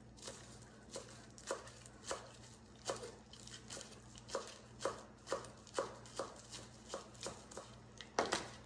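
Kitchen knife chopping fresh spinach leaves on a cutting board: a steady run of sharp knocks on the board, about two a second, the loudest near the end.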